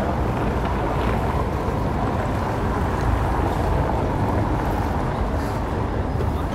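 Steady low rumble of street traffic, unbroken, with no distinct events standing out.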